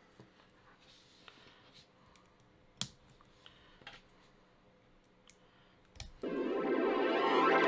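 A handful of small, sharp plastic clicks, scattered and quiet, as Playmobil toy pieces are handled and snapped together. About six seconds in, electronic dance music with a heavy beat starts abruptly and grows louder.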